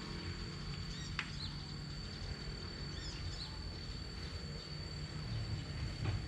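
Outdoor ambience: a few short bird chirps, one a quick falling sweep about a second in and others around the middle and near the end, over a steady thin high tone and a low rumble.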